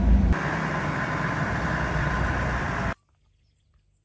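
Safari 4x4 driving on a dirt track, heard from inside the cabin: steady engine and road rumble. It cuts off abruptly about three seconds in, leaving near silence with a faint chirp or two.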